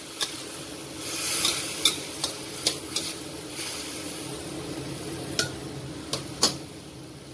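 Eggplant and anchovy stir-fry being stirred in a pan: a steady sizzle with scattered knocks and scrapes of the stirring utensil against the pan, about eight in all. A little water has just gone in with the eggplant and tomato.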